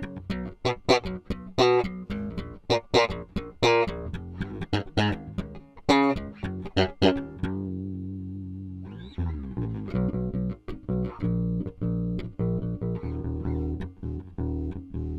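Junior JB100 jazz-style electric bass played solo through its bridge single-coil pickup. A run of sharp, bright plucked notes lasts about seven seconds, a held note rings out, then softer, smoother notes follow.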